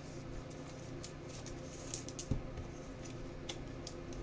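Faint soft clicks and short scrapes of trading cards being handled and slid one past another, over a steady low hum.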